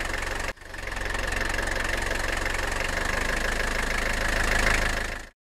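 Diesel truck engine idling steadily. The sound breaks off for an instant about half a second in and stops abruptly near the end.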